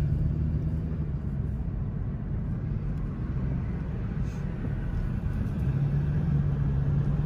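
Car engine and tyre noise heard from inside the cabin while driving: a steady low drone whose engine hum eases off about a second in and comes back stronger near the end.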